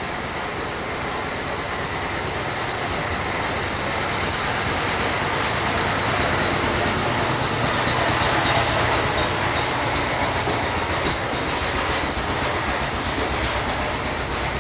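Steady rushing, rumbling background noise with no distinct events, swelling slowly toward the middle and easing off toward the end.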